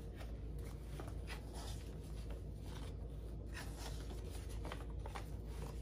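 Paper banknotes being handled: soft, irregular rustling and crinkling as bills are slid into a plastic binder envelope and pulled from a cash tray.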